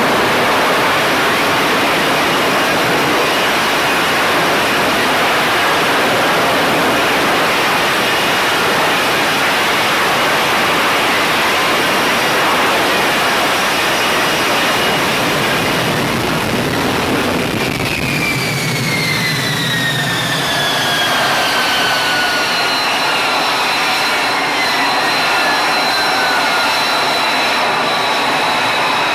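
F-35B's F135 jet engine running at high power in a hover, a loud steady rush. About two-thirds of the way through, as the jet settles onto the deck, the power comes back and several whines fall steadily in pitch.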